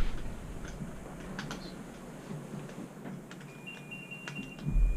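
A sharp knock, then scattered small clicks and taps. About three and a half seconds in, a REM pod starts sounding its high electronic alarm tone, stepping between two close pitches. The alarm is the sign that its sensor has been triggered.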